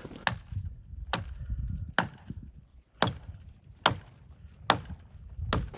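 Wood being chopped: seven sharp, evenly spaced strikes, a little under one a second.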